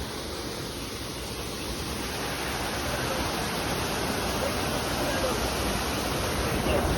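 Steady rush of water from a waterfall, growing slowly louder, with faint voices underneath.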